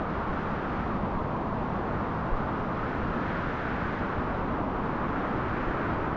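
Steady rushing wind, the sound effect of a body falling through the air.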